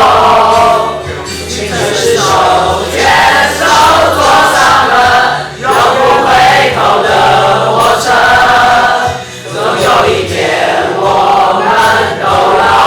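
A group of voices singing a pop song together over a backing track, in phrases of a few seconds with short breaths between them.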